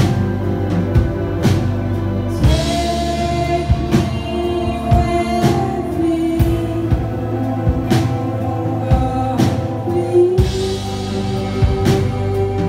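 Live band playing a song on acoustic guitar, electric guitar, bass and drums, with a lead vocal holding long notes. Cymbal wash swells in about two and a half seconds in and again around ten seconds in.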